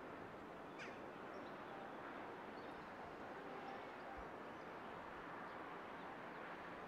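Faint outdoor ambience: a steady hiss of background noise with a few faint, short bird chirps, one a little clearer about a second in.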